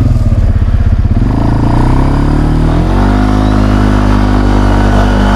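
Polaris 500 ATV engine accelerating: the revs climb steadily from about a second in to about three seconds in, then hold at a higher steady pitch under throttle.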